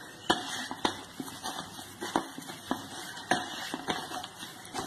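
Mashed potato cutlet mixture being kneaded and squeezed by hand in a stainless steel bowl, with irregular taps and knocks against the metal about twice a second over a soft squishing hiss.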